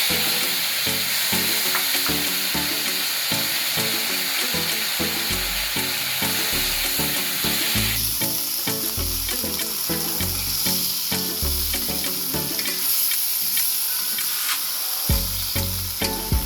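Hot oil sizzling as chillies, shallots and tomato fry in a pan for sambal terasi. The sizzle starts suddenly at the outset and changes in character about halfway through.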